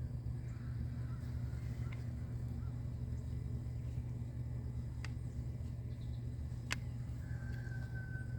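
Greasing work on a Kubota KX033-4 excavator: two sharp clicks, about five and nearly seven seconds in, over a steady low hum, with a faint thin high whine near the end.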